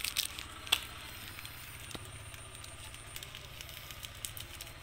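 Wood cooking fire crackling under a pot of fish soup: a few sharp pops, the loudest about three-quarters of a second in, among faint crackles over a low steady rumble.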